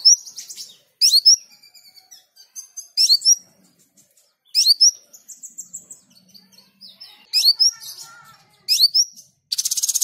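Male Van Hasselt's sunbird (kolibri ninja) singing: sharp, high, sweeping chirps about every one and a half seconds, a brief thin whistle midway, and a fast buzzy trill near the end.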